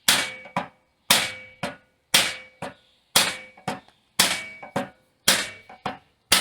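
Hammer blows on a sheet-metal body panel, bending over a lip along its bottom edge: a ringing strike about once a second, each followed by a lighter tap about half a second later.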